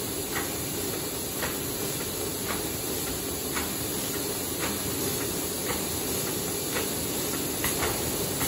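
Paper hamburger box forming machine running: a steady mechanical din and hiss, with a sharp click repeating about once a second.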